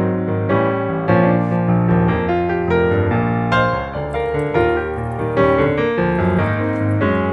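Background piano music, played as a steady run of notes.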